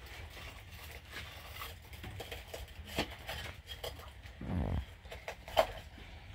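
Light, scattered clinks and scrapes of a utensil against a metal cooking pot as rice is served out onto a platter, with a sharper clink near the end and a brief low thud a little past halfway.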